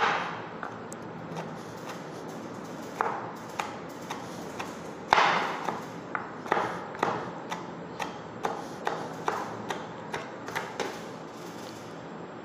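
Kitchen knife slicing bitter gourd into small pieces on a wooden cutting board: a series of uneven chopping taps, roughly two a second, some louder than others.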